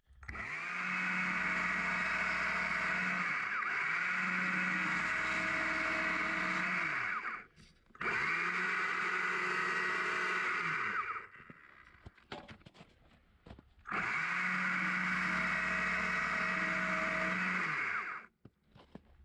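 Stihl electric chainsaw running at full speed and cutting into a small log, in three steady runs of several seconds each with short stops between, as the base of a mini tree carving is cut down to a trunk.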